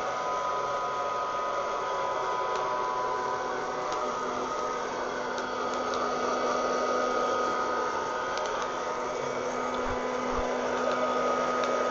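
Wear-Ever Popcorn Pumper hot-air popper running steadily as a coffee roaster: an even blower rush with a hum and a thin whine. A few faint sharp clicks come through it, the occasional cracks of coffee beans as first crack dies down.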